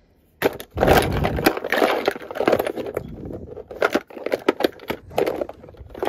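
Glass and plastic makeup bottles, tubes and compacts clattering and knocking together as a hand rummages through a crowded drawer. It is an irregular run of clicks and rattles, starting about half a second in.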